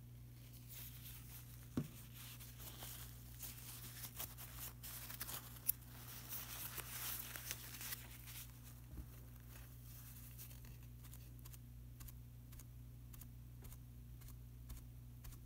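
Faint scratching, rustling and light tapping of painting materials being worked, with two sharper clicks about two and six seconds in and lighter ticks later, over a low steady hum.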